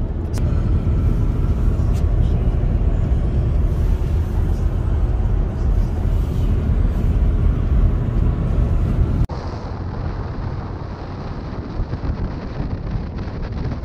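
Steady low rumble of road and engine noise inside the cabin of a moving 2015 BMW X4 3.0d. About nine seconds in it cuts abruptly to a quieter, duller rumble.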